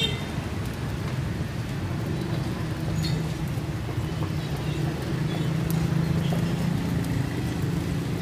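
Street ambience: a steady low rumble of motor traffic, with a few faint clicks.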